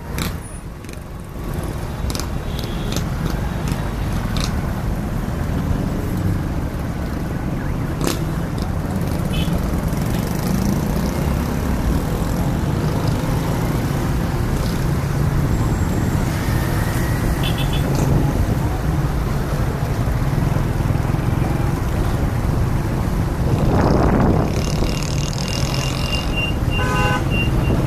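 Road traffic noise: a steady rumble of passing motor vehicles with scattered clicks and short tones over it. One vehicle swells and fades as it passes close, about three-quarters of the way through.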